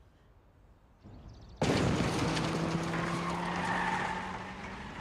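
A car's tyres skidding, starting suddenly about a second and a half in, with a steady low hum running underneath as the noise slowly fades.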